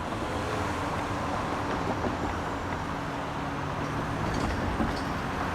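Steady rumble and hiss of vehicle noise, without speech or music.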